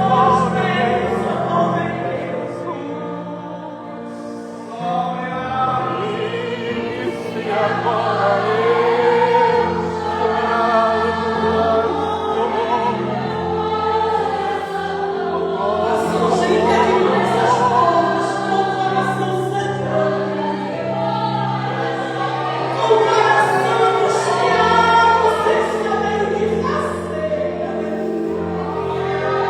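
Christian gospel music: voices sing in chorus over sustained instrumental chords.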